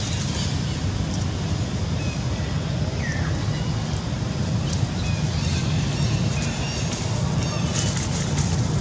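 Steady low outdoor rumble, with a few brief high chirps, one about three seconds in.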